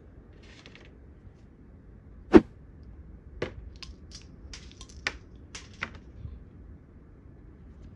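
Small plastic knocks and clicks from plastic toy cups and a plastic spoon being handled, with one louder knock about two seconds in, then a scatter of lighter clicks and taps as the spoon scrapes across play-dough.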